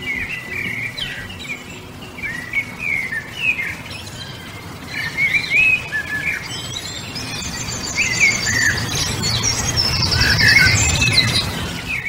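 Several small birds chirping and singing in short, sweeping phrases. A fast, high trill from another bird joins about halfway through, over a low rumble that swells near the end.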